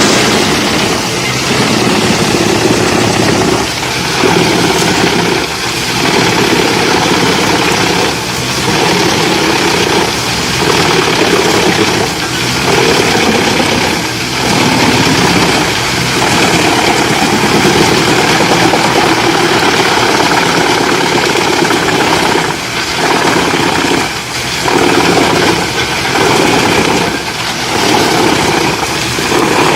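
A heavy machine's engine running steadily, with short dips in level every second or two.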